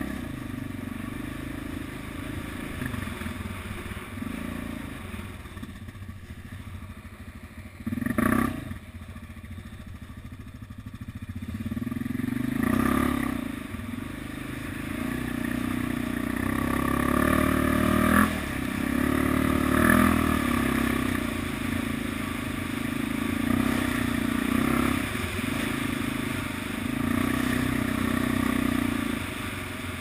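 ATV engine running as it is ridden along a rough trail, its pitch rising and falling with the throttle and getting louder about halfway through. There is a single loud knock about eight seconds in, with lighter clatter from the machine over bumps.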